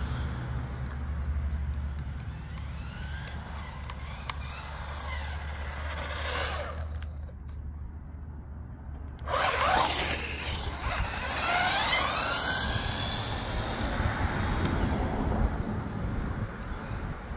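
Rlaarlo AK-917 1/10-scale RC touring car driving, its 550 13T brushed motor and gears whining, the pitch rising and falling as it speeds up and slows down. About seven seconds in the whine drops away for a couple of seconds, then comes back suddenly and loud.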